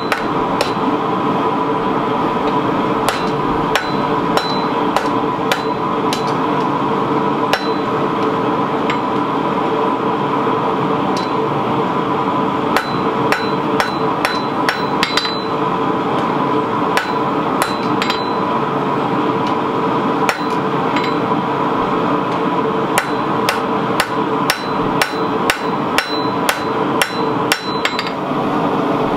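Hand hammer striking red-hot 52100 steel held in tongs on an anvil, forging a knife blade. The blows come in irregular runs with short pauses, over a steady hum.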